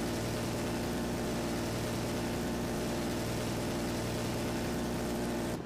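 Minigun sound effect: a rotary machine gun firing continuously, one dense unbroken rapid-fire buzz. It stops just before the end and leaves a fading tail.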